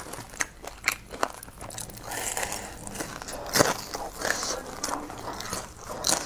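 Close-miked crunching and chewing of a deep-fried breaded pork cutlet, with irregular crisp crunches, the loudest about three and a half seconds in.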